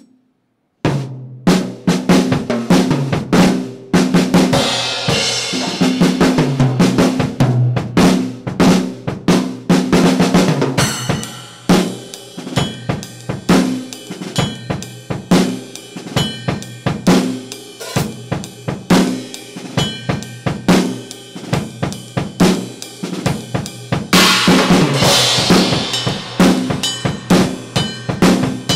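Acoustic drum kit played as a solo in a rock/metal style: rapid kick, snare and tom hits, with crash cymbals washing over the hits a few seconds in and again near the end. The kit is picked up by just two overhead microphones. It starts about a second in after a moment of silence.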